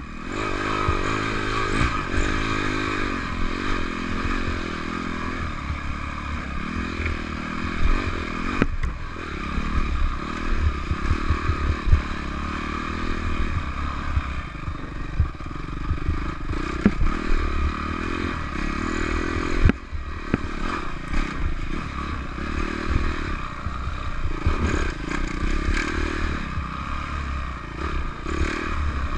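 Dirt bike engine revving up and down as it is ridden over a rough trail, with clattering and occasional sharp knocks from the bike, two of them about nine and twenty seconds in.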